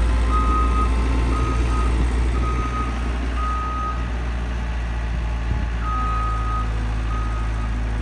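CAT 257 rubber-track skid steer's diesel engine running steadily while its backup alarm beeps about once a second as the machine reverses; the beeping stops for about two seconds midway, then resumes.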